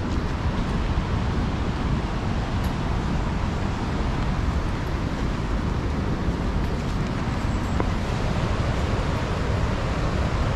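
Steady rushing of the Cumberland River's white-water rapids, an even noise with a low rumble that does not change.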